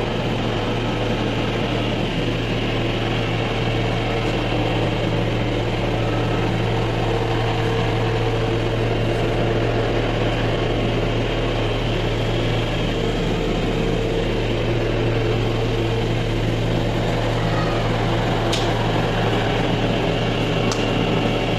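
Electric cotton candy machine running steadily, its heated head spinning sugar into floss with a constant hum, and two light ticks near the end.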